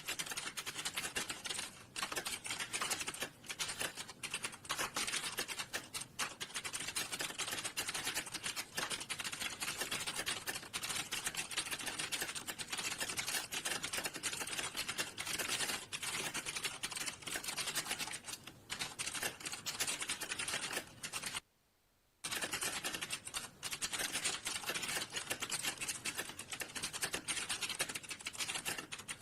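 Fast, continuous typing on a computer keyboard: a dense run of key clicks, broken once by a sudden silence of under a second about three-quarters of the way through.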